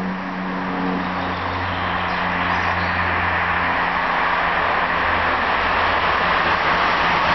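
Passenger train approaching on the line: a rushing rumble of wheels on rails that grows steadily louder as it nears, with a low steady hum underneath.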